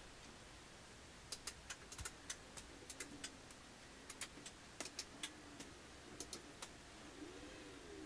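Lab Gruppen E Series power amplifiers switching on from standby: a string of about twenty sharp, irregular clicks over some five seconds as the units power up.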